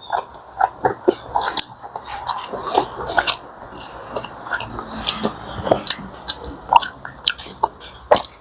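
A person eating seafood-boil food close to the microphone: chewing and biting, with many irregular sharp clicks and crackles.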